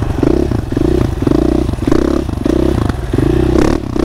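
Motorcycle ridden in a tight circle, its engine revved in short repeated bursts about every two-thirds of a second.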